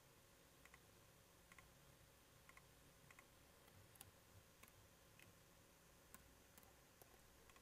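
Faint computer mouse clicks, some in quick double pairs, roughly one every half second to second, over near-silent room tone.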